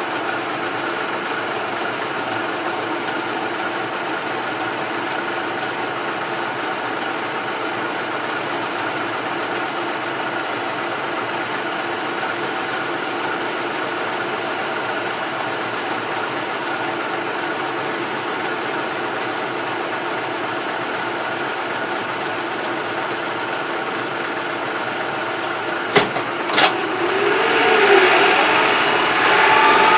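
Farm tractor's diesel engine idling steadily, heard from inside the cab. Near the end there are two sharp clicks, and then the engine revs up with a rising pitch as the tractor moves off.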